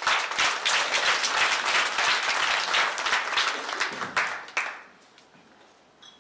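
Small audience applauding, a dense run of clapping that dies away about five seconds in.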